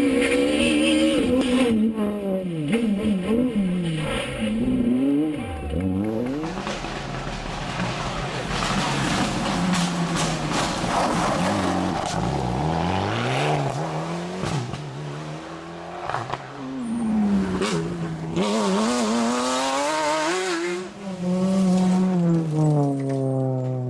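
Rally cars running flat out on a stage, passing one after another. Each engine revs hard, its pitch climbing and then dropping back at gear changes and as the car brakes and goes by.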